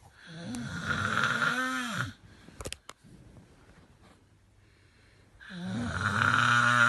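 A person snoring heavily: a long snore, then a few sharp clicks, then a second long snore starting near the end. Each snore carries a buzzing tone that drops in pitch as it ends.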